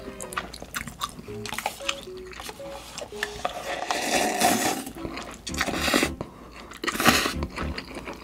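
Close-miked mukbang eating sounds: chewing and crunching, with louder slurping as instant-noodle broth is drunk from the cup about four seconds in and again near the end. Light background music with short plucked notes plays underneath.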